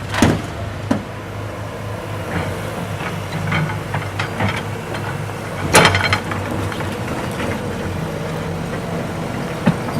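Diesel loader engine running steadily at a construction site, with scattered clanks and knocks. A loud crashing impact comes about six seconds in.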